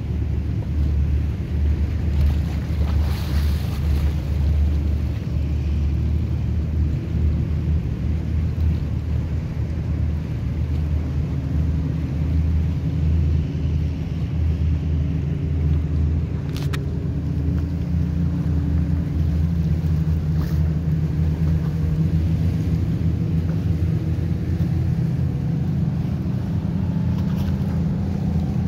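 Steady low drone of many motorboat engines cruising past on the lake, with waves on the water. In the second half a nearer boat's engine hum comes up more clearly.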